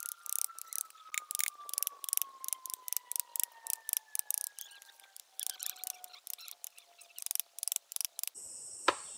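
A metal blade chipping and scraping into a tree trunk's bark and wood in quick, irregular strokes, about three or four sharp clicks a second. Near the end a steady high insect shrill takes over.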